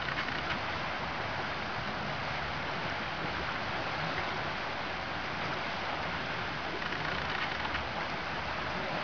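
Steady wash of water: small lake waves lapping and splashing around a wading Irish Setter.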